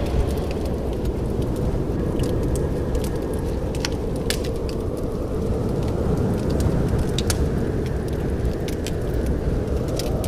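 Wood fire burning in a fireplace: a steady low rushing rumble with sharp, irregular crackles and pops from the burning logs.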